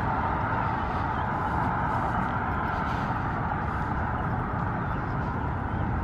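Steady road traffic noise of cars driving past on the street, a continuous hum of tyres and engines.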